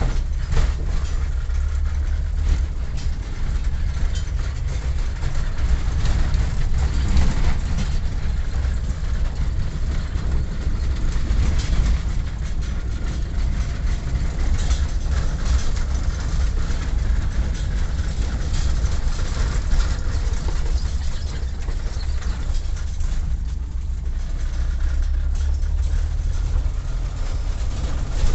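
A vehicle on the move: a steady, loud low rumble of engine and road, with frequent small knocks and rattles throughout.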